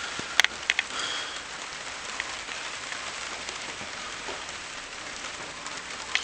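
Steady rain falling on a smashed lean-to conservatory roof and coming through it, with a few sharp ticks of drops in the first second.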